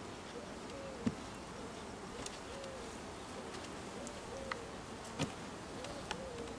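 Honeybees buzzing around an open hive, individual bees flying close by with a hum that rises and falls in pitch. A few light knocks sound over it, the two clearest about a second in and just past five seconds.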